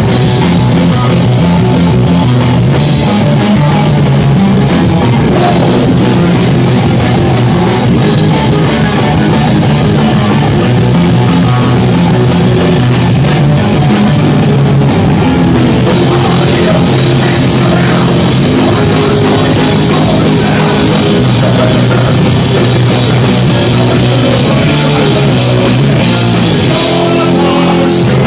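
Rock band playing live, electric guitar over a drum kit, loud and steady throughout.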